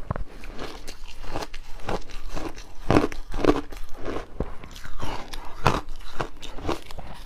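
Close-up crunching of refrozen shaved ice being bitten and chewed, a quick run of sharp cracks and crunches, loudest about three seconds in and again near six.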